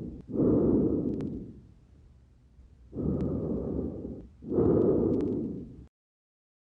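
Breath sounds heard through a stethoscope on the chest: two breaths, each a low rushing in and out, the second phase louder, with a few faint clicks on top. The sound cuts off abruptly near the end.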